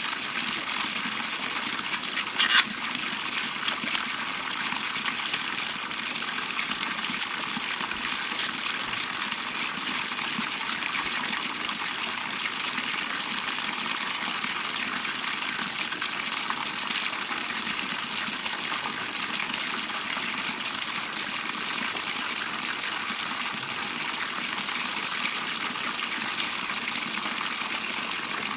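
Water pouring steadily from a pipe into a plastic bucket at an outdoor washing slab, a constant gushing with no change in flow. A single short knock sounds about two and a half seconds in.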